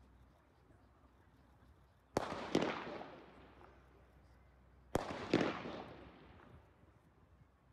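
Two sharp blank-pistol shots about three seconds apart. Each is followed within half a second by a second crack and a long fading ring. This is the gunfire test given to a protection dog while it heels.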